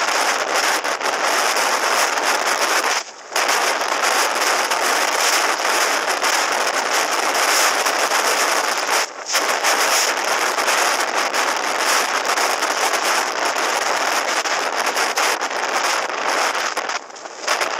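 Wind rushing and buffeting over a helmet-mounted microphone at road speed, a harsh crackling roar that dips briefly about three seconds in, about nine seconds in, and again near the end. The motorcycle's engine is not distinctly audible beneath it.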